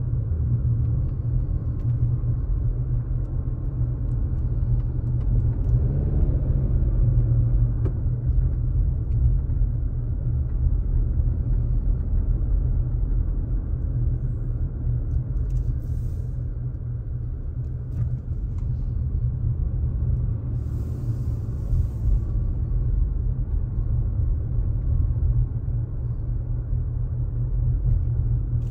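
Car driving at low speed, heard from inside the cabin: a steady low engine and road rumble. The engine note rises briefly about six seconds in as the car accelerates.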